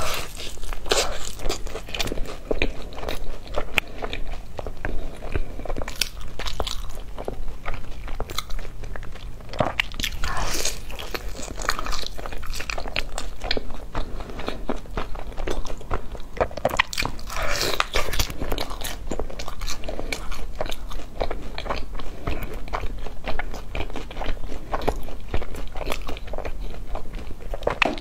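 A person biting into and chewing a crispy browned piece of food close to a clip-on microphone: repeated sharp crunches and wet chewing sounds throughout.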